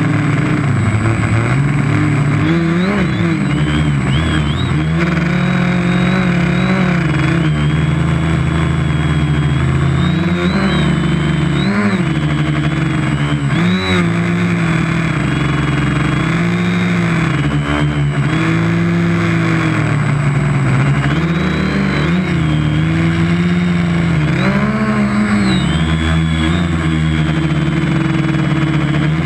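Quadcopter's electric motors and propellers whining, heard through the onboard GoPro, their pitch rising and falling again and again as the throttle changes, over a steady rushing noise.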